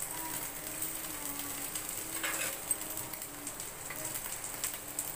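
Chopped vegetables sizzling and crackling as they stir-fry in hot oil with ginger and garlic in a pan, a steady hiss with scattered pops.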